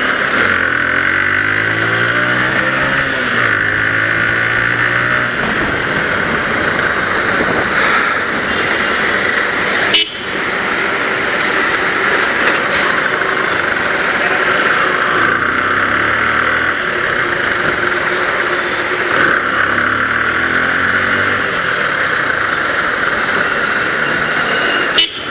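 Motorcycle being ridden, its engine note rising and falling with the throttle over steady wind and road noise. A sharp knock sounds about ten seconds in.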